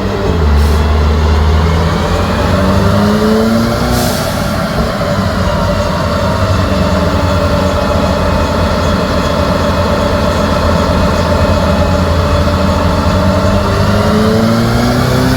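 Mercedes-AMG C43's twin-turbo V6 running hard on a chassis dyno with upgraded turbos. The revs dip and then climb again near the end, with a short hiss about four seconds in.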